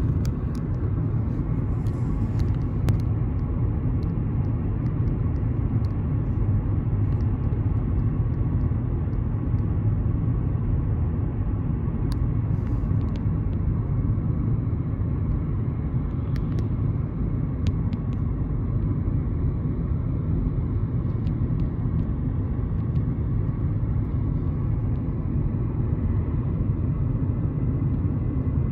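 Steady low rumble of a car driving along a road: tyre and engine noise heard from the moving vehicle, with a few faint clicks.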